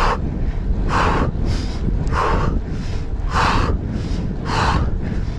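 A cyclist breathing hard from the effort of a steep uphill climb, one heavy breath about every second, over a steady low rumble of wind on the microphone.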